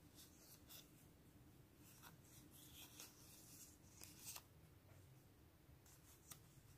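Faint rustling and light ticks of die-cut paper stickers being shuffled and fanned through by hand, in short scattered scrapes, the loudest about four seconds in.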